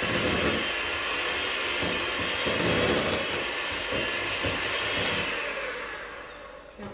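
Electric hand mixer running steadily, its beaters whipping butter in a glass bowl; the sound fades away over the last two seconds or so.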